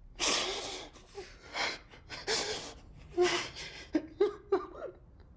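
A man breaking down sobbing: ragged, gasping breaths, then a few short whimpering cries near the end.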